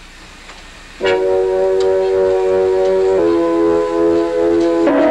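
Electronic keyboard sounding a cluster of many notes held down at once, steady with no decay, starting about a second in. The held cluster shifts lower about three seconds in and changes again near the end.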